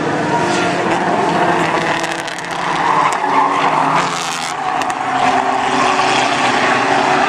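Several compact race cars' engines running hard together through a turn. About three seconds in, tyres squeal and skid as one car slides wide in the corner.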